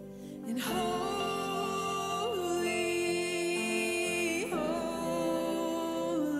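Live worship band playing a slow, soft passage: long sustained chords under a lead line that slides between long held notes.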